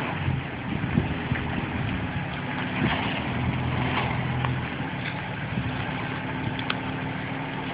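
Off-road vehicle's engine running steadily at low revs, its pitch holding, with a few faint clicks over it.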